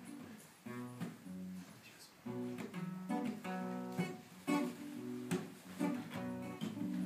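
Acoustic guitar strummed, held chords struck with sharp strokes about once a second and changing now and then.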